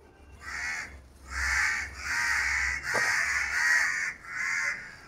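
A crow cawing nearby, a series of about five harsh caws, each half a second to a second long.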